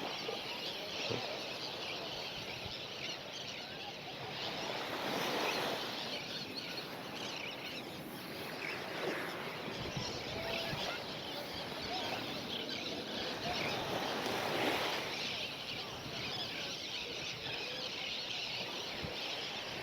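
Beach ambience by a calm bay: a steady hiss of wind and gently lapping water that swells and fades a few times, with a faint short call about halfway through.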